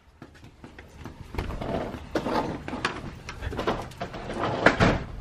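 Sliding patio door being slid open, with a run of rattling knocks and scrapes from the door and frame.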